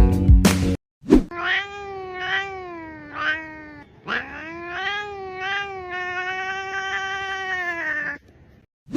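Cat yowling: two long, wavering drawn-out meows, the first rising and falling in three pulses, the second held longer and steadier.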